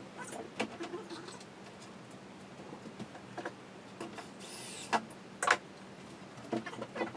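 Knocks and clicks of particleboard cabinet panels and fittings being handled and fitted together during furniture assembly, with a brief high squeak about four and a half seconds in and two sharp knocks just after.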